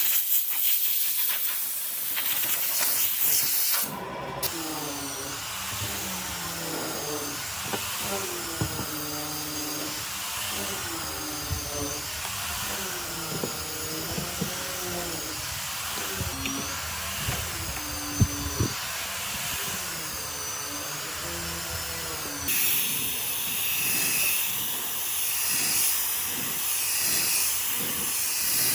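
Steady hissing with wavering, gliding whistle-like tones. The sound changes abruptly about four seconds in and again near the end.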